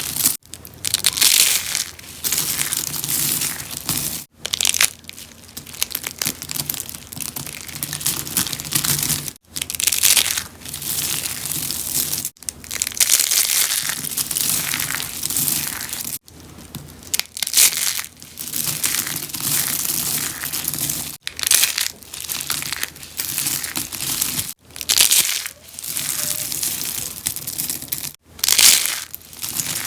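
Rose-shaped soap flowers being crushed and crunched, a dense crackling crunch that comes in stretches of a few seconds, each broken off by an abrupt short gap.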